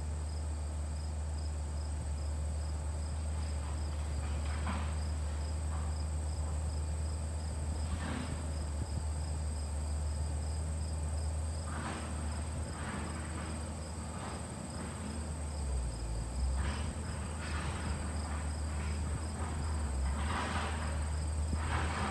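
An LG cooling unit running hard on its newly replaced condenser fan motor: a steady low hum with a steady high-pitched whine and a faint, rapidly pulsing high tone over it. Short scuffs and rustles come and go.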